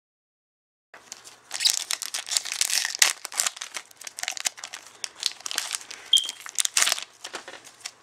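Foil Pokémon booster pack wrapper being torn open and crinkled by hand: a dense run of sharp crackling rips that starts about a second in and eases off near the end.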